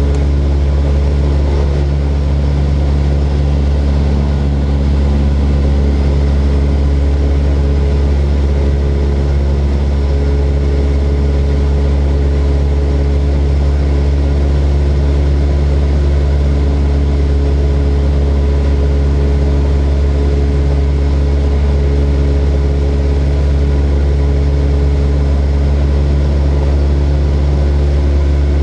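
Small propeller plane's engine running steadily: an unbroken drone with several steady tones and a strong low hum.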